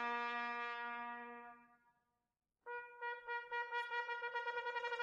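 Background music: one piece ends on a held chord that fades out about two seconds in. After a short silence, music starts again with sustained notes.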